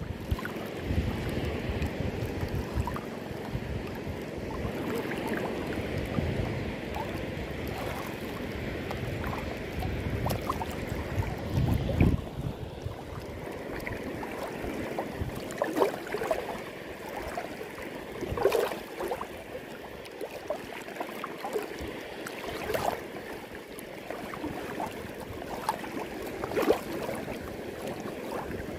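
Shallow sea water lapping and sloshing around a wader's legs, with wind rumbling on the microphone. There are a few brief louder moments.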